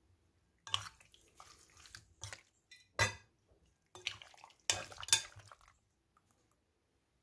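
Metal utensils clinking and scraping against a glass mixing bowl while raw chicken cubes are stirred through an oily marinade. There are a few sharp clinks, with wet mixing sounds between them.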